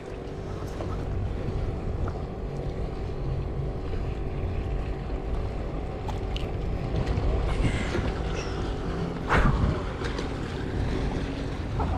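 Wind buffeting the microphone over water noise around a fishing kayak, with one short, louder sound about nine seconds in.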